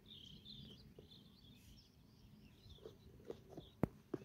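Faint chirping of small birds in the background, with a few light clicks in the last second and a half, the sharpest shortly before the end.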